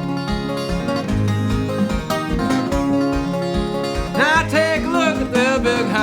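Country song with a bluegrass feel, plucked strings over a steady beat; a sliding lead melody comes in about four seconds in.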